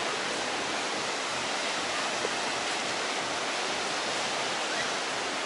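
Steady rushing of sea surf breaking on a sandy beach, an even hiss with no single waves standing out.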